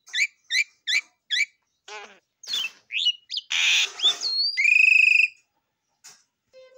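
Common myna calling: four quick rising chirps, then a run of varied whistles and a harsh rasping call, ending in a long held note that stops a little past five seconds in.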